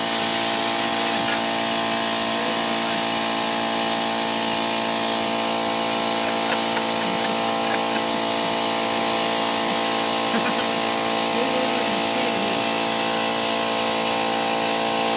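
Central Pneumatic portable air compressor running steadily, its motor and pump giving a constant hum with many fixed tones. For about the first second compressed air hisses out of the hose, then stops.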